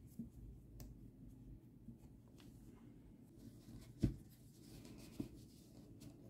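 Faint rubbing and rustling of hands working yarn and pushing fiberfill stuffing into a crocheted piece. A sharp knock about four seconds in, and a smaller one about a second later.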